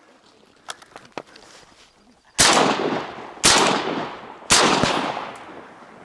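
Shotgun fired three times in quick succession, about a second apart, each shot trailing off in an echo.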